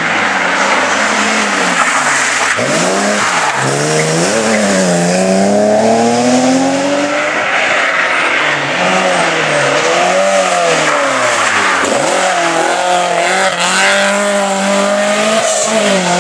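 Rally car engines revving hard, the pitch climbing and dropping again and again as the cars accelerate, shift gears and lift off the throttle through the stage's bends.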